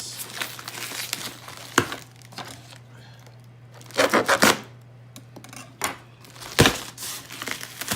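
Cardboard box and packing being pulled open and handled: tearing and crinkling, with a quick run of sharp crackles about four seconds in and a single sharp knock a couple of seconds later. A faint steady hum sits underneath.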